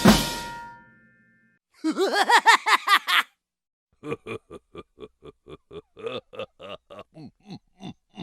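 Cartoon laugh sound effects: a short burst of fast, bouncy laughter, then a longer run of quieter, evenly spaced snickering pulses, about four a second. It opens on the ringing tail of a drum hit.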